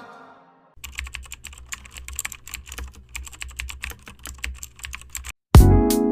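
Typing on a computer keyboard: a fast, dense run of keystroke clicks over a low hum that stops about five seconds in, after which loud music starts.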